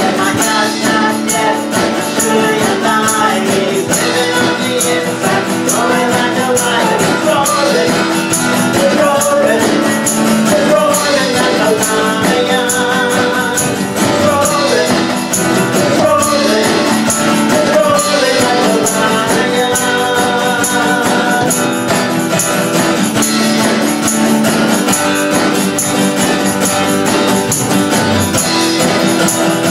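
Live worship band music: a steady beat with a shaken tambourine, guitar, and a wavering melodic line over it.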